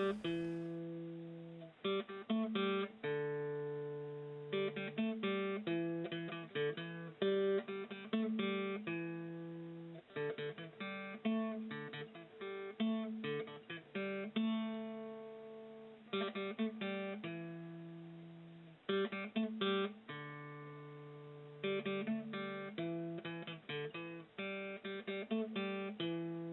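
Acoustic guitar music: strummed chords that ring out and fade, with short pauses between phrases.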